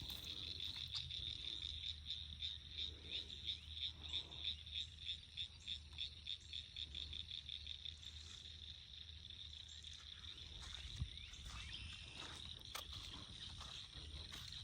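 Frogs calling in a chorus, faint and high-pitched, pulsing about three times a second for the first half and then running on as a steadier high chorus. A single soft knock about eleven seconds in.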